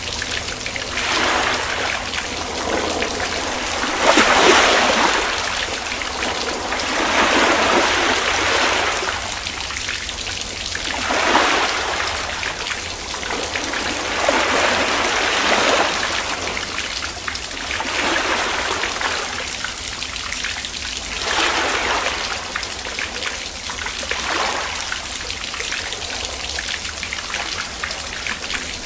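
Rain falling steadily, swelling louder and easing back every few seconds.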